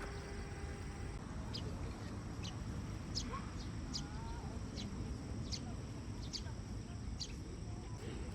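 A small bird chirping repeatedly, short high notes about once a second, over a steady low outdoor rumble.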